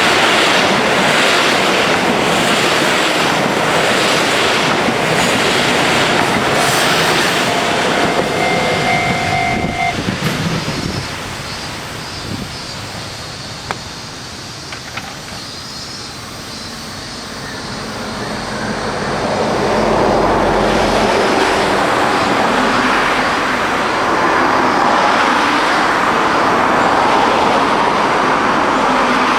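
KiHa 85 series diesel limited express train passing close by over a level crossing: loud running noise of the wheels on the rails, with a steady whining tone just before it drops away about ten seconds in. A second swell of noise builds again in the last third.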